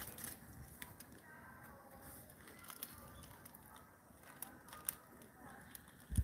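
Faint background hush with scattered sharp clicks and ticks, and one low thump near the end.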